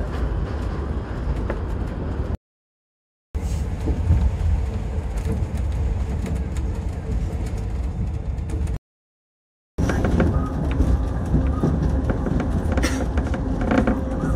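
Shonan Monorail suspended car running, heard from inside the cabin: a steady low rumble with a faint steady hum. The sound drops out to silence twice for about a second, and a few light clicks come near the end.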